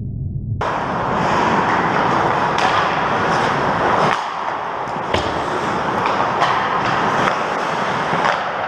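Ice hockey play close to the net: a steady scraping hiss of skate blades on the ice, broken by several sharp clacks of sticks and puck. It starts abruptly about half a second in, after a muffled low rumble.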